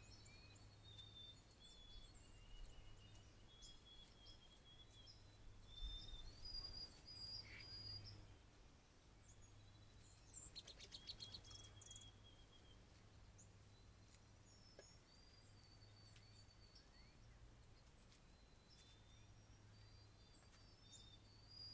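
Faint songbird chorus from several birds: short, thin, high whistled notes scattered throughout, with a rapid trill about ten seconds in. A steady low hum runs underneath.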